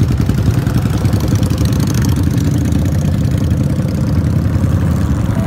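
Motorcycle engine running steadily at idle, loud and close.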